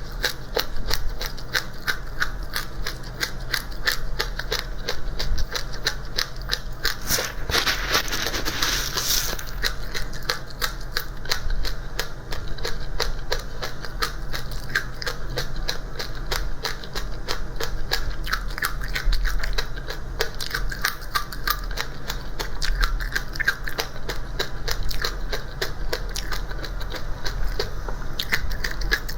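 Dry seeds being crunched and chewed, many crisp crackles a second, over a low steady hum. About seven seconds in, a louder rustling hiss lasts around two seconds.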